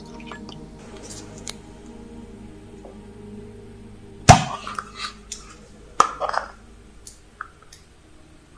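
One sharp knock of hard objects about four seconds in, followed by lighter clicks and a quick cluster of clinks, over soft background music.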